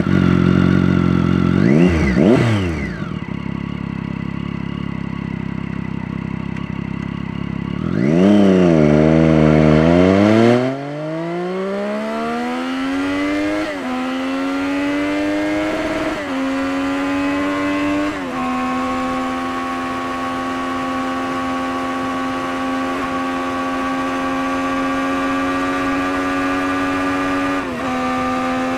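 Motorcycle engine through a Scorpion aftermarket exhaust: a few sharp revs, then the engine note climbs in pitch with three brief dips and settles into a steady, higher drone.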